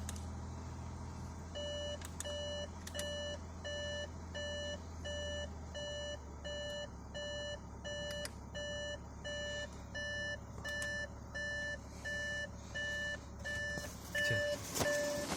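Audi A6 dashboard warning chime beeping over and over, about three beeps every two seconds, over the engine's low, steady idle.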